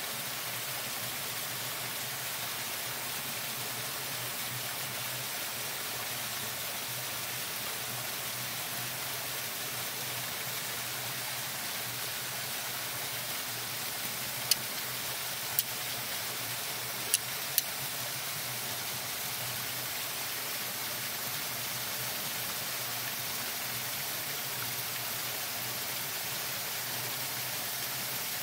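Four sharp clicks of a steel striker hitting flint, a little under halfway through, throwing sparks onto a char-cord tinder wick to catch an ember. Under them runs a steady rush like flowing mountain water.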